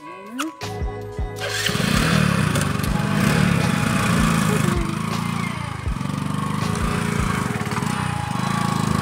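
Background music for the first second and a half, then a motorcycle engine running loud and steady as the bike is ridden slowly over rough ground, its pitch dipping and picking up again a few times with the throttle.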